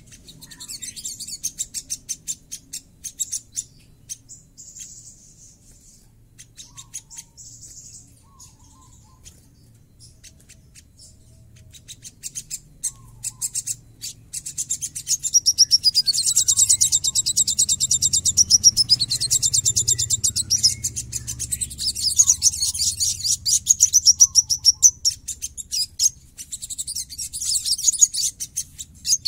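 Olive-backed sunbird singing high, very fast chattering trills. There are scattered chips and short trills at first, then a loud, dense run of rapid-fire notes from about halfway through.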